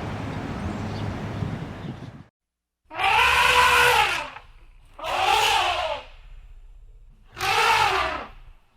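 An animal calling three times, each a drawn-out cry of about a second that rises and falls in pitch. Before the calls, a steady rushing noise cuts off about two seconds in.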